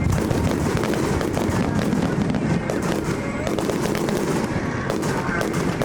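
Fireworks display going off in a dense, continuous run of bangs and crackles.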